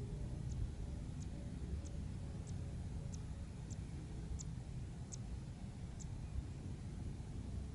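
Open-country ambience: a steady low rumble with a short, high tick repeating evenly, about one and a half times a second.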